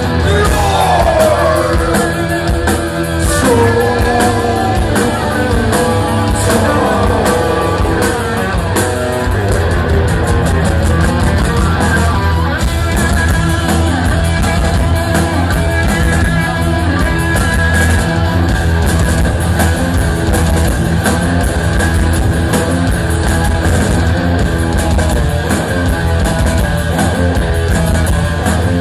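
A thrash metal band playing live and loud, with distorted electric guitars, bass and a drum kit driving a fast, steady rhythm.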